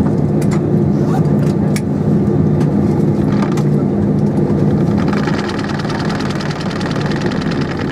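Cabin sound of an Airbus A320-232 taxiing, heard from inside the cabin: its IAE V2500 engines give a steady low drone. A few light clicks and rattles come in the first two seconds, and a higher buzzing joins about five seconds in.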